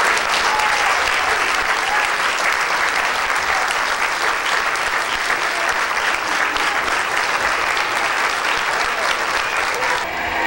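Audience applauding steadily: many people clapping at once in a large room.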